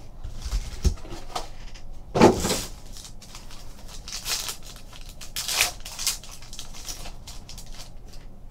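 Foil trading-card pack wrappers crinkling and being torn open by hand, in several short rips, the loudest about two seconds in.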